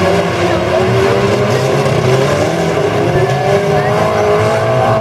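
Several stock-car racing engines running hard together, their notes rising and falling over one another in a steady din.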